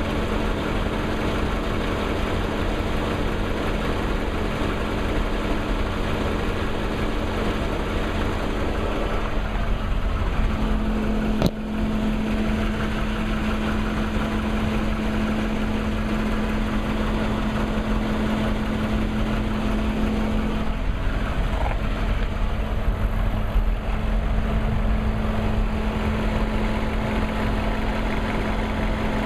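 2003 BMW 540i's V8 engine idling steadily with a ticking noise. One sharp click about eleven seconds in.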